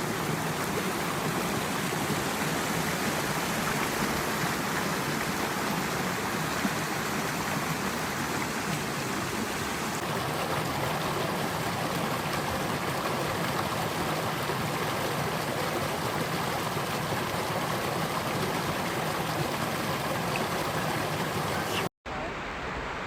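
Steady rush of a flowing stream, with a brief cut to silence near the end.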